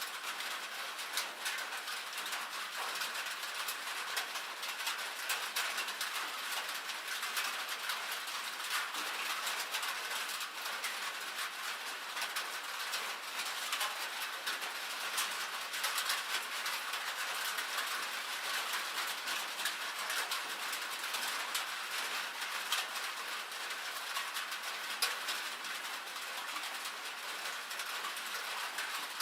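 Rain, with hail, drumming on a metal roof: a dense, steady patter of countless fine ticks.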